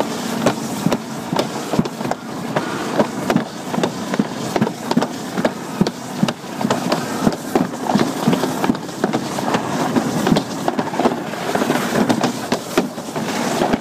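Alpine slide sled running fast down the track, a steady rolling rumble broken by frequent irregular clacks and knocks.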